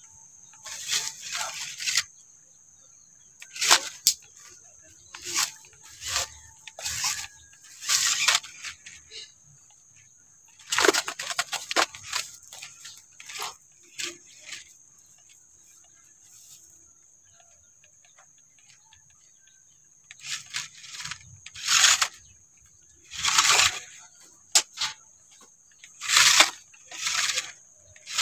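Small electric RC off-road truck driven in repeated short throttle bursts, each a second or less: its motor and gears whirring and its tyres scrabbling on loose dirt as it climbs a bank and a log. The bursts come irregularly, with a quiet stretch of several seconds around the middle.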